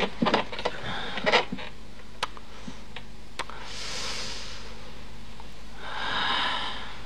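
Light clicks and knocks with some rustling, then two drawn-out breaths, the second louder, about six seconds in.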